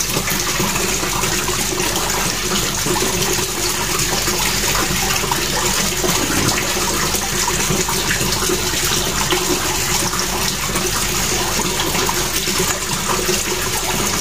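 Steady rushing of running water, even and unbroken throughout.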